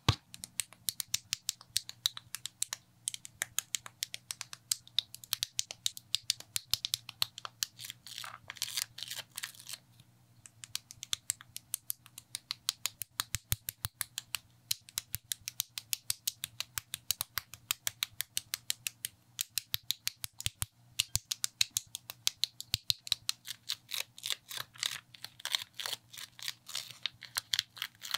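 Plastic building bricks clicking and snapping together, sharp clicks several a second, with a couple of denser, scratchier stretches of handling.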